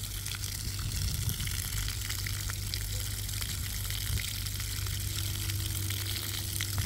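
Water running steadily from an open yard hydrant's spout and splashing onto wet dirt and a hand held beneath it, over a steady low rumble.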